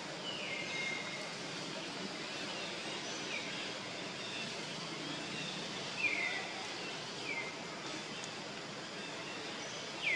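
An animal's short high calls, each sliding down and ending on a brief held note, repeated five times at irregular gaps of one to three seconds, over steady outdoor background hiss; the calls about six seconds and ten seconds in are the loudest.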